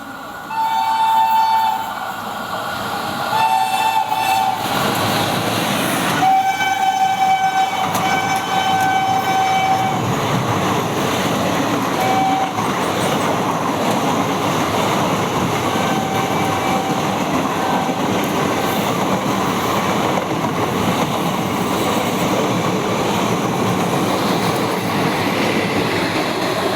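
Indian Railways EMU train sounding its horn in a string of blasts: two short blasts in the first few seconds, a longer run of blasts from about six to ten seconds in, then a few shorter toots. Under them is the steady rumble and wheel clatter of the train running by, which builds up about four seconds in.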